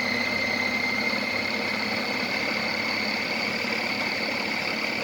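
Electric food chopper's motor running steadily on speed 2, its blade chopping the load in the bowl, with a steady high whine over the motor noise.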